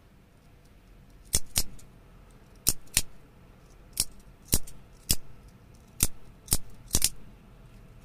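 Carbon fiber haptic coin clicking as its two magnet-held halves are thumbed out of line and snap back together. There are about ten sharp clicks, mostly in quick pairs, coming every second or so.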